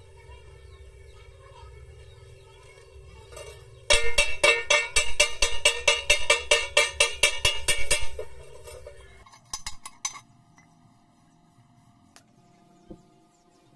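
A hammer rapidly striking a freshly stick-welded joint on a 1-inch steel pipe, knocking off the slag: about four ringing metallic knocks a second for some four seconds, starting about four seconds in. A few lighter clicks follow about a second later.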